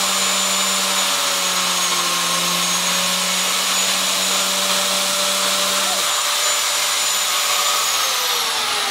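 TOTAL electric biscuit jointer running at speed with a steady high whine while it cuts a biscuit slot in a pine board. Near the end it is switched off and its whine falls in pitch as the motor winds down.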